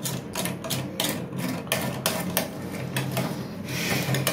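Parts of a toilet's push-button flush mechanism rubbing, scraping and clicking in a run of irregular short strokes as they are worked loose and opened.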